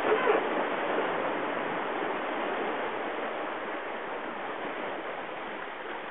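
Steady rush of wind and sea water around a racing sailing yacht under way, easing slightly toward the end.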